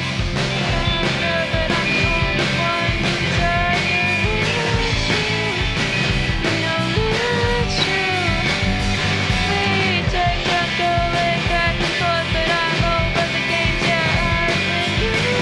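Live rock band playing an instrumental passage: bass guitar and drum kit with a lead electric guitar line whose notes bend in pitch.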